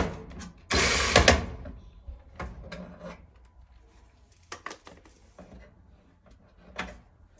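Handling noise of tools and the dryer's metal parts: a sharp click, then a loud clattering rattle lasting under a second about a second in, followed by scattered light knocks and taps that fade.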